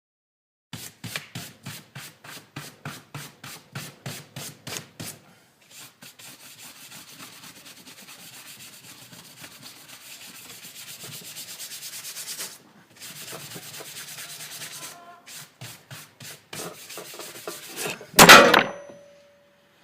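A workbench top being scrubbed by hand: rhythmic back-and-forth strokes at about four a second, then a steadier rubbing, then a few more strokes. Near the end comes one loud clang with a brief metallic ring.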